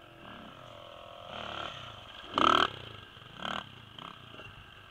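Dirt bike engines idling, with three short revs of the throttle. The loudest rev comes about two and a half seconds in.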